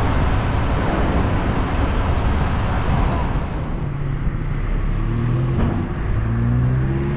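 A dense rushing noise, then, about four seconds in, a car engine running and slowly rising in pitch as the car drives along.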